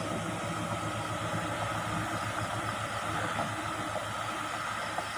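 A vehicle engine running steadily: an even low hum with background noise and no distinct events.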